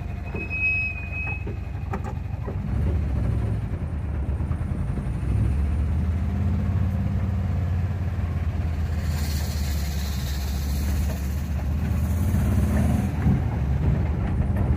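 Volkswagen Kombi van's engine running steadily as the van drives along a narrow dirt road, with a few light knocks early on; the engine note gets louder about three seconds in.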